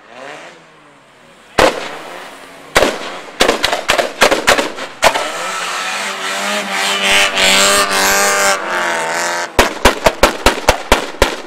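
Car engine revving as it drives past, among loud sharp bangs: one about a second and a half in, a dense cluster a little later, and a rapid, evenly spaced run of about ten near the end.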